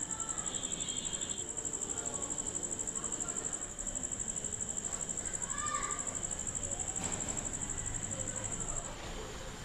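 Cricket chirping: a high-pitched, rapidly pulsing trill that turns steadier and weaker near the end.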